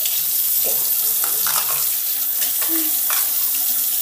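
Tap water running steadily into a bathroom sink, an even rushing hiss.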